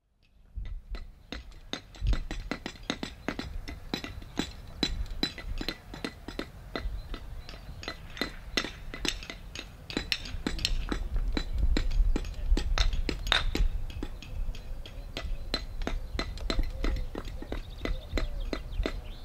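Clay paving bricks clinking against one another and being tapped into place with a paver's hammer: sharp, ringing clinks, several a second, over a low rumble.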